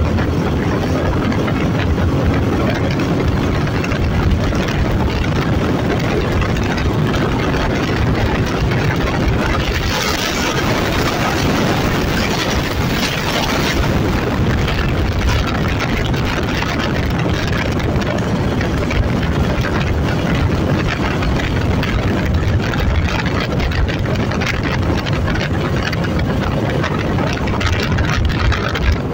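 Onboard sound of a Suzuki V-Strom SX 250 at highway speed: heavy wind rush over the microphone with the single-cylinder engine running underneath. A brighter hiss comes in for a few seconds about ten seconds in.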